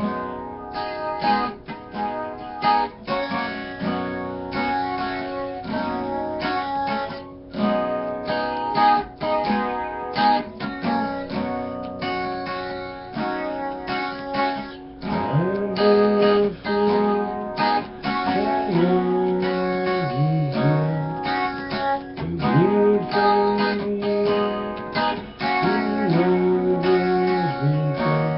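Acoustic guitar strumming chords, an instrumental passage with no singing. Sliding notes come in lower down from about halfway through.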